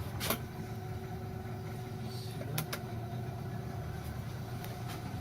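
Boat motor running steadily, a low even hum, with a few sharp clicks.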